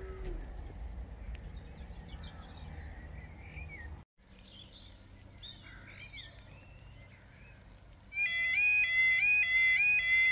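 Birds singing, then about eight seconds in a level crossing's warning alarm starts, loud and two-tone, alternating between a high and a low note a few times a second. The alarm marks the start of the crossing's warning sequence for an approaching train.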